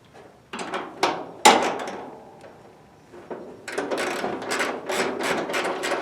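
The steel hood of a 1963 Chevrolet C10 pickup and its hinges knocking and scraping as the hood is lifted and fitted in place. There are three sharp knocks in the first second and a half, the third the loudest and ringing, then a couple of seconds of quick rattling and scraping.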